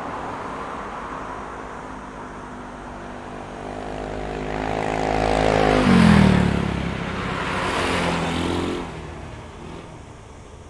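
A road vehicle approaching and passing close by. Its engine tone rises in loudness, then drops in pitch as it goes past about six seconds in. A second, lighter rush of tyre and engine noise follows about two seconds later before the traffic sound fades away.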